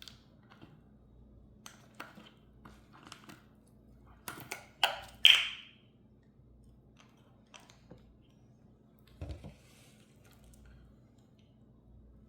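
Slime being handled: scattered small clicks and sticky squelches, with a few louder wet smacks about four to six seconds in and one more near nine seconds.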